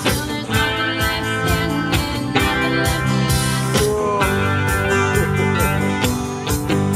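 Live rock band playing: strummed acoustic guitars, electric guitar and bass guitar over a drum kit keeping a steady beat.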